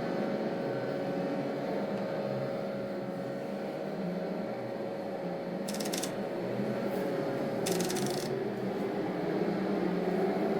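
Manual typewriter keys clattering rapidly and continuously, sped up. Two short, sharp higher noises stand out a couple of seconds apart around the middle.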